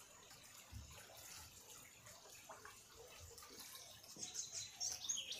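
Faint, steady rush of flowing floodwater, with some high chirping near the end.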